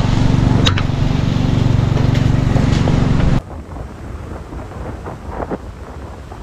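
Strong wind buffeting a handheld GoPro's microphone, a loud rumble with a steady low hum underneath; about three and a half seconds in it cuts off sharply to a quieter hiss of wind and breaking surf.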